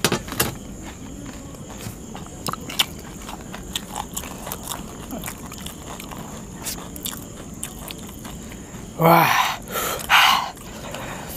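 Crunching bites of crisp pani puri shells, heard as scattered short sharp cracks. Near the end a man's voice breaks in loudly twice.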